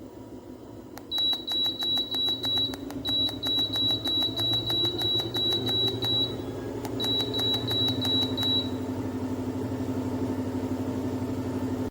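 Walking pad treadmill running with a steady motor hum that climbs in pitch and then holds, under a fast series of short high beeps and rapid regular clicking, typical of the speed being stepped up on the remote.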